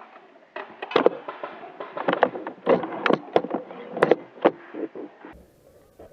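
Airsoft gunfire: a rapid, irregular run of sharp cracks and clacks, which cuts off suddenly about five seconds in.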